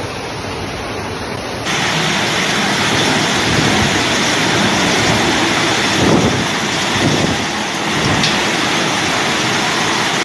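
Floodwater rushing down a street. Less than two seconds in it gives way to a louder torrential downpour: a dense, steady rain hiss with a few deeper rumbling surges around six to eight seconds in.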